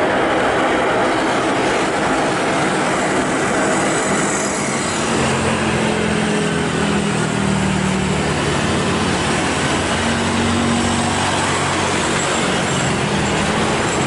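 Jet airliner engines running with a loud, steady roar; a low drone joins in about five seconds in.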